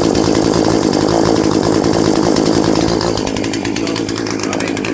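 Poulan P3314 33cc two-stroke chainsaw running steadily at idle after a cold start, easing off slightly about three seconds in. It has a new carburetor whose low-speed mixture the owner suspects is not well adjusted.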